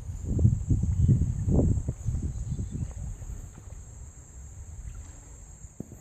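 Insects buzzing steadily in a high, even drone. Beneath it come irregular low rumbling knocks, loudest in the first two seconds and fading after.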